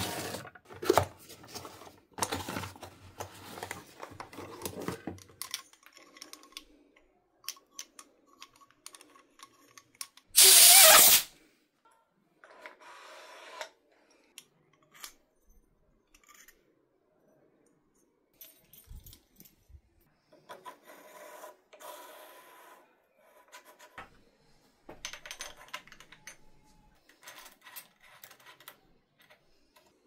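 Hand-tool work on metal parts: scattered clicks, clinks and knocks of small parts and tools being handled. About ten seconds in there is one loud burst of noise lasting under a second.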